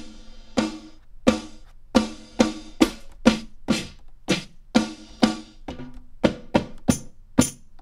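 Boom bap-style sampled snare drum one-shots auditioned one at a time from MPC pads: about sixteen separate hits, roughly two a second, each a different snare. The last two are brighter, tambourine-layered snares.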